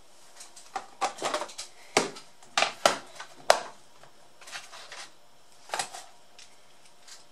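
Plastic precision screwdriver case and tools being handled on a desk: a string of sharp clicks and knocks as the case is set down and opened, loudest in the first half, with a last few clicks near the end.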